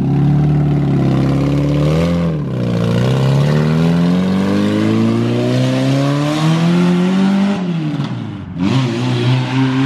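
Mazda Miata's four-cylinder engine running on open headers with no exhaust, loud, as the car pulls away under throttle. The revs dip about two seconds in, climb steadily for about five seconds, then fall sharply near the end before picking up again.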